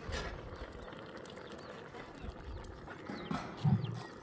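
Small birds chirping, short arched chirps repeated from about halfway in, over a faint outdoor background with scattered light clicks. A brief low-pitched sound, the loudest thing, comes near the end.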